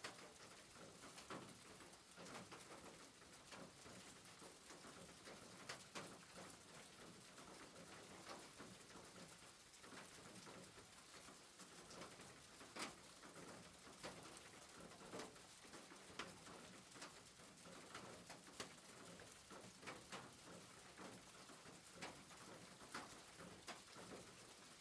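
Rain falling on a roof: a steady, faint hiss with irregular louder drops tapping.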